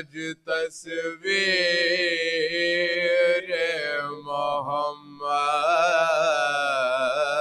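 Unaccompanied male voices chanting a marsiya, a Shia mourning elegy, in long held notes that waver in pitch, with short breaths between phrases.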